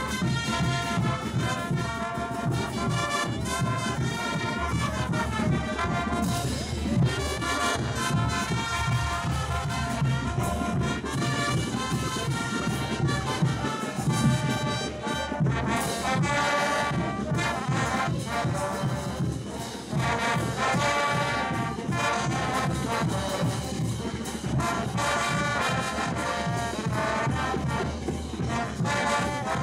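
Brass band playing lively dance music for circle dancing, horns carrying the tune over a steady beat.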